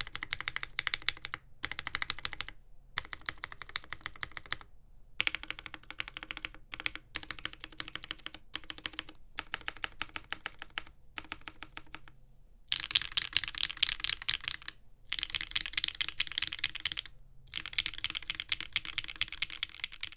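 Typing on a Neo Ergo mechanical keyboard with lubed Gateron Milky Yellow Pro linear switches on a POM plate with case foam. It comes in runs of fast keystrokes broken by short pauses, and it gets louder and denser for the last third.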